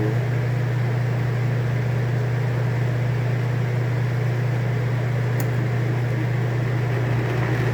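Two old air conditioners running on fan only, compressors off: a steady blower rush over a strong, even low hum.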